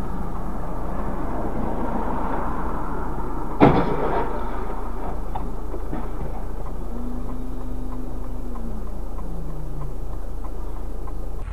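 Steady road and engine rumble of a car heard from inside the cabin by its dashcam, with a single sharp knock about a third of the way in. A faint low held tone sounds for a couple of seconds in the second half and drops away at its end.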